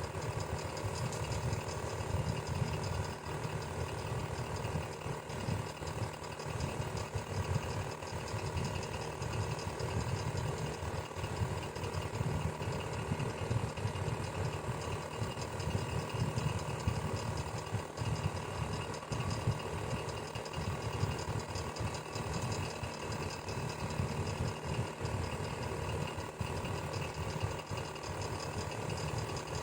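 Electric fan running steadily, a constant whir of motor and blades with several steady hum tones and a fine, fast mechanical rattle in the low end.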